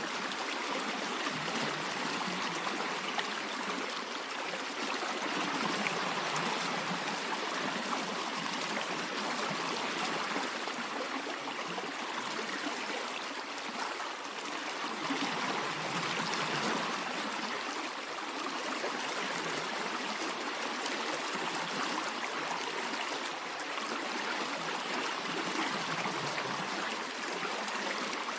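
Stream water running steadily, an even rushing trickle that swells and eases slightly.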